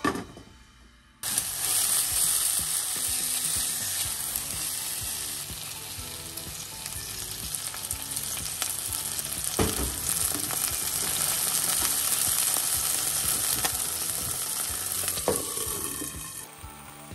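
Ginger-marinated chicken thigh and onion sizzling in a nonstick frying pan. The loud, steady sizzle starts abruptly about a second in, with a couple of sharp knocks along the way. Near the end it drops and turns muffled as a glass lid goes on the pan.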